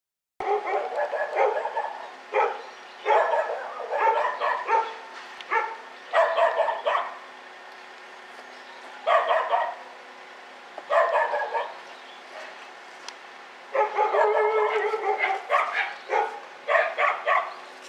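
Dogs barking and yelping in repeated bouts a second or two apart, over a steady low hum.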